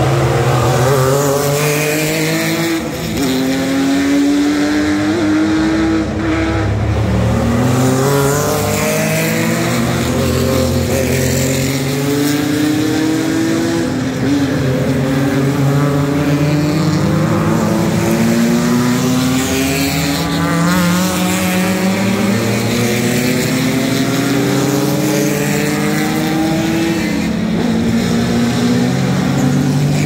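A stream of vintage sports racing cars with engines over 2.0 litres accelerating hard out of a corner one after another. Each engine's note rises through the revs and drops back at an upshift, the notes of several cars overlapping.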